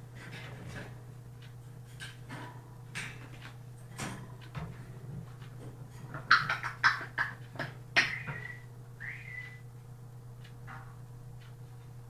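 Five-month-old African grey parrot vocalising in its cage: scattered clicks and scratchy sounds, a burst of loud harsh calls about six seconds in, then short whistled notes around eight and nine seconds.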